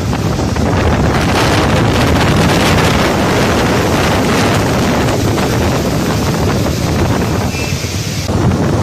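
Steady loud rushing noise of wind buffeting a phone microphone on a moving motorbike, mixed with the roar of a large waterfall.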